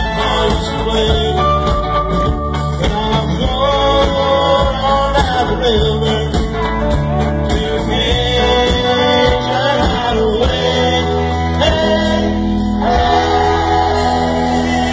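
Live band playing a song on stage, with a singer holding long sung notes over guitar and a steady bass.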